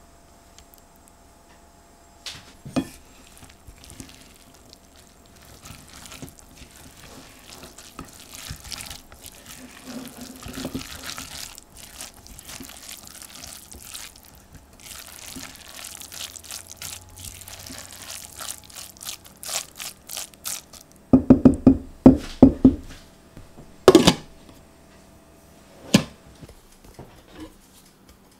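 A spatula stirring pesto through cooked brown rice in a stainless steel pot, with soft, wet scraping and squishing. About three quarters through comes a quick run of loud knocks, then two more single knocks.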